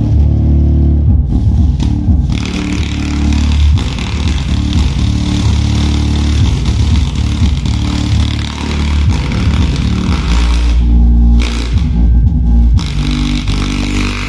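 Bass-heavy music played loud through a subwoofer driven by a homemade car amplifier built on 5200/1943 power transistors, the deep bass notes strongest. About eleven seconds in the higher sounds drop away for a couple of seconds while the bass keeps going.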